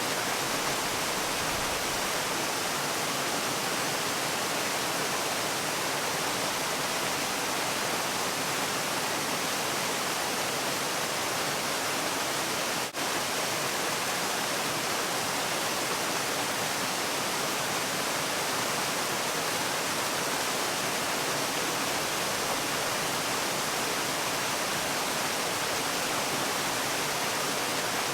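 Waterfall rushing in an even, steady hiss, strongest in the high range, with one brief dip in level about halfway through.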